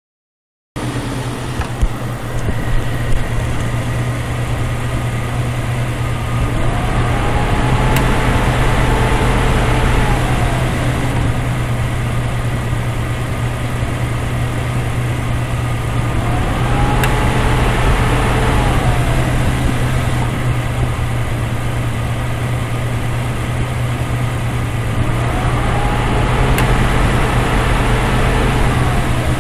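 Jeep Cherokee engine idling while its Sanden A/C compressor clutch cycles on and off, three times about nine seconds apart. Each time the compressor engages a whine rises, holds for a few seconds and falls away, with a sharp click. Short-cycling like this is the sign of a low refrigerant charge.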